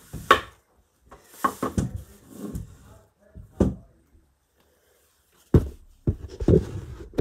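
Household objects being handled and set down on a hard surface: a series of separate knocks and clunks, with a short quiet gap in the middle.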